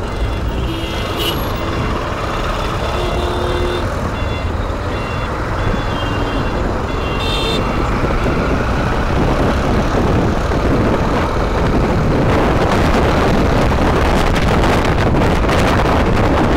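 Honda X-Blade 160's single-cylinder engine running under way, with wind rushing over the microphone, getting louder from about twelve seconds in as the motorcycle picks up speed. There are short, faint beeps in the first few seconds.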